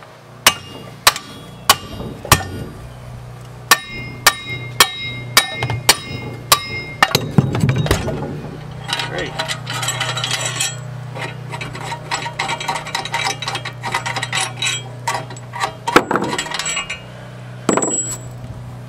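Hammer tapping on steel bolts threaded into a van's front wheel hub bearing to drive it off the steering knuckle: sharp ringing metal strikes, about three every two seconds, in two runs. They are followed by a stretch of rapid clinking and rattling, and two more hard strikes near the end.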